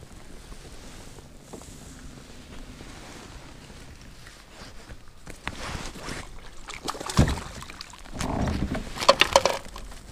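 A bass being reeled in and landed into a kayak. After a few seconds of low, steady handling and water noise come scattered clicks, a loud knock about seven seconds in, and a burst of sharp clicks and rattles near the end.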